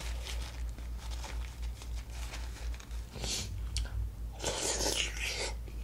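Close-miked eating sounds: a sauce-soaked boiled potato being bitten into and slurped, with a short noisy burst about three seconds in and a longer one from about four and a half seconds.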